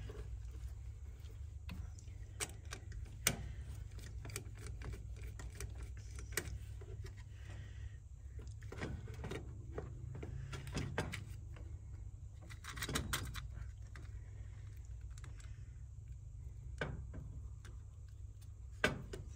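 Scattered small clicks, taps and rustles of wires and a plastic thermostat receiver wiring plate being handled, with a few louder clusters of clicks, over a steady low hum.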